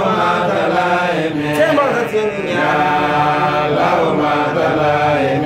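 Male voices in Islamic religious chanting, in long, drawn-out melodic lines that slide between held notes.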